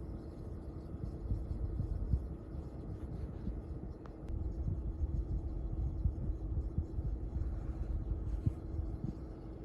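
Toyota RAV4 air conditioning running: a steady hum over a low, fluttering rumble. This is the abnormal 'churu-churu' noise that comes every time the cooler is switched on and that a Toyota dealer check did not cure.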